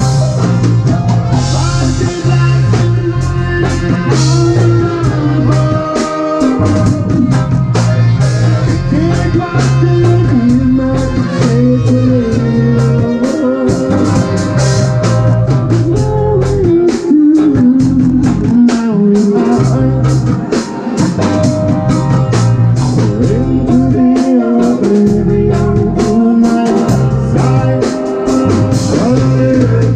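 Live band playing: trumpet and saxophone over electric guitar and a drum kit keeping a steady beat, with a man singing lead into a microphone.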